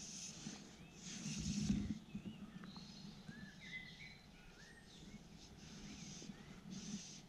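Small birds chirping in short, curving calls over a faint outdoor hiss that swells and fades, with one low bump about a second and a half in.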